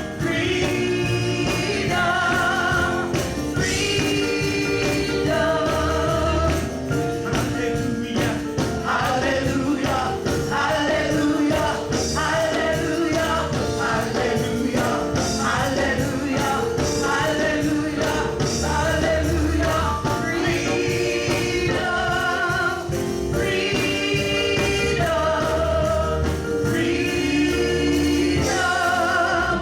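Gospel singing with a band: voices singing a repeated praise chorus over bass, drums and tambourine.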